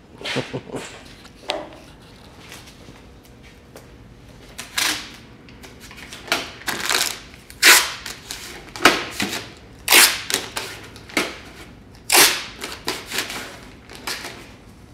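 Masking tape ripped off the roll in a dozen or so short, sharp pulls and torn off, as tape is laid along a motorcycle fender for masking before paint.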